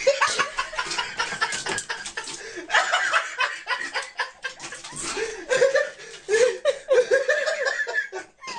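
A person laughing in short, repeated bursts off camera, with light knocks and rattles of plastic bottles as the cat paws through a toiletry caddy.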